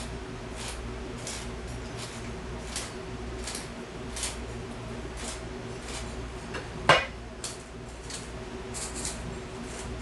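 Seasoning shaken from a glass shaker over a pan of frying potatoes: a short gritty hiss about every two-thirds of a second, over a steady low hum. A sharp clink of glass or metal on the pan about two-thirds of the way through.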